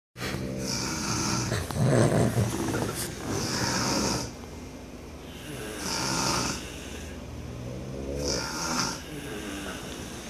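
Heavy snoring in a steady rhythm, about four snores, one every two and a half seconds or so, each a low rattling snort with a hissing breath over it.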